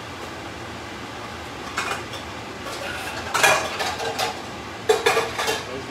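Metal pan and utensils being handled, clattering and clinking: a knock about two seconds in, a burst of clinks past the middle, and a few sharp knocks near the end.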